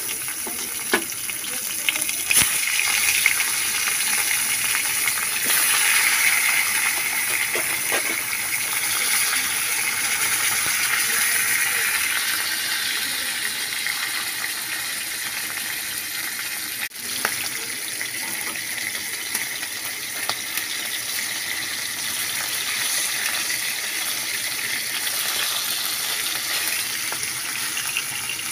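Tilapia steaks sizzling steadily as they shallow-fry in hot oil in a steel kadai. There are a few light knocks in the first few seconds as pieces are laid into the pan.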